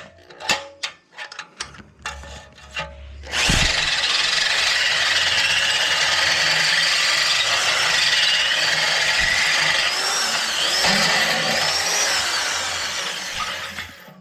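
A few clicks and knocks, then about three and a half seconds in, a power drill with a big bit starts grinding steadily through the catalytic converter's honeycomb inside a motorcycle exhaust pipe, running without a break until just before the end.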